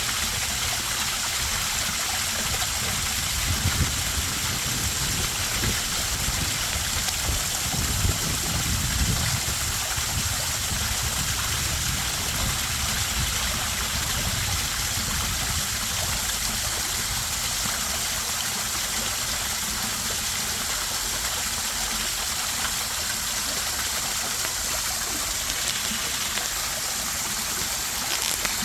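Backyard koi pond waterfall, water splashing and running steadily into the pond.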